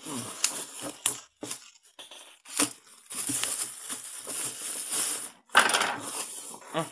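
Clear plastic heat-shrink film crinkling and crackling as hands handle a shrink-wrapped box: scattered sharp crackles, a longer rustle through the middle and a louder crackle near the end.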